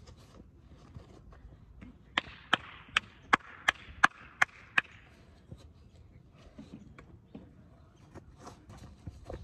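A person clapping their hands about eight times in an even rhythm, roughly three claps a second, over a couple of seconds.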